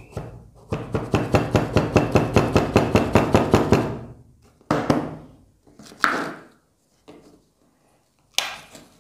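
A rod tamping damp rocket-motor fuel down into a narrow white pipe: a quick, even run of light taps, about seven a second for some three seconds. Then a few separate knocks and a scrape as a metal spoon works in a plastic bowl.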